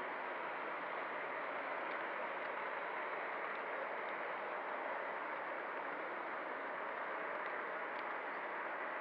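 O scale model train rolling along the track, heard from a camera riding on the train: a steady rushing rumble of wheels on rail with a faint steady motor hum and a few light clicks.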